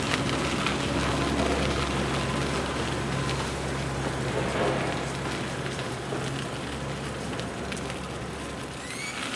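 Steady rushing wind and tyre noise from riding a bicycle along a paved trail, under a low engine hum from road traffic that fades out about seven seconds in. A bird chirps near the end.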